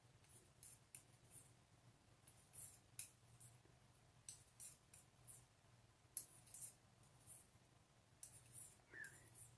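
Large knitting needles clicking faintly against each other in small groups of ticks every second or two as stitches are purled, over a faint steady low hum.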